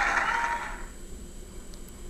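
Studio audience applause and cheering, heard through a television speaker, fading out within the first second, then a quiet stretch of faint background hiss.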